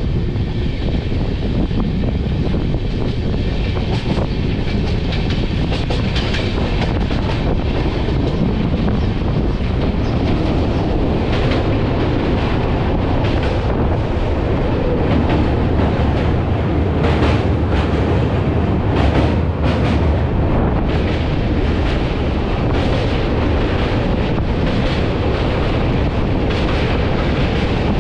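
Rajdhani Express passenger train running at speed, heard from the coach doorway: a steady rumble with wheels clacking over the rails. From about a third of the way in the clacks come thicker and the rumble deepens as the train crosses a steel girder bridge.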